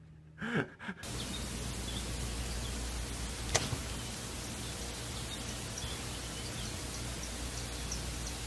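Woodland wildlife footage playing through laptop speakers: a steady hiss with faint, scattered high chirps, and one sharp click about three and a half seconds in.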